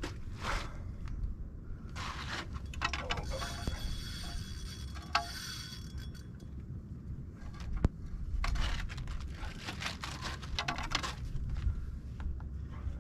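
Fishing gear rattling and scraping, with scattered sharp clicks and a short high whine partway through, over a steady low rumble.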